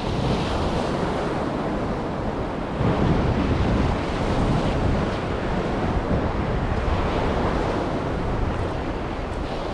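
Sea surf washing on the shore, with one wave swelling louder about three seconds in, and wind buffeting the microphone.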